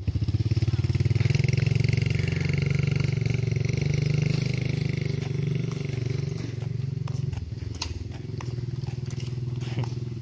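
A motor vehicle's engine running steadily, a low, evenly pulsing sound that sets in suddenly at the start.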